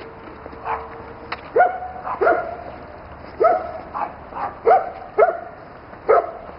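A dog barking repeatedly, about eight short barks at uneven intervals.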